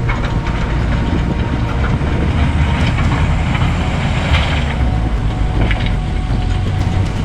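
Heavy diesel machinery running with a steady loud rumble, with scattered knocks and rattles.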